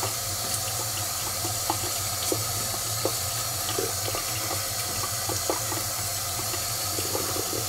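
A sink tap running steadily, with a steady low hum under it and a few faint scattered clicks.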